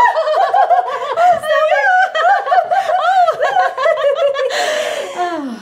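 Women giggling in high, wavering voices, a long run of tittering that turns into a breathy laugh near the end and trails off in a falling sigh.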